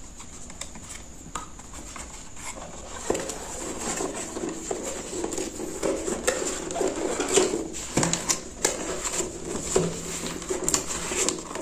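Cardboard box handled by hand: the printed outer sleeve is slid over the inner box and the box is turned over, with irregular scraping, rustling and light knocks that grow louder about three seconds in.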